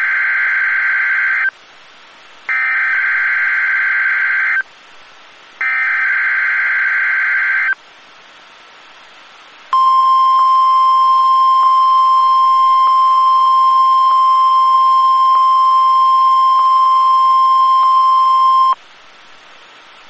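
NOAA Weather Radio EAS/SAME header for a Required Weekly Test: three buzzing data bursts of about two seconds each, with short gaps between them. A second or two later comes the steady 1050 Hz warning alarm tone, held for about nine seconds before it cuts off suddenly.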